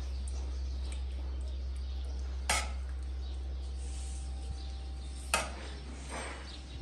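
Dishes and utensils clinking twice in a kitchen, once about two and a half seconds in and again near the end, over a steady low hum.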